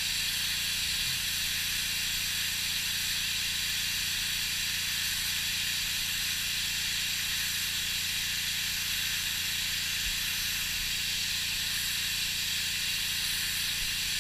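Pressure washer spraying a steady jet of water onto a fiberglass boat deck, blasting off old wrap adhesive: a constant hiss over the low, steady hum of the washer's motor.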